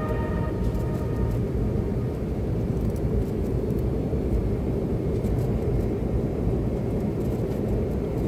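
Steady low rumble of an airliner's engines and airflow, heard inside the passenger cabin as the plane climbs through cloud. Background music fades out in the first second.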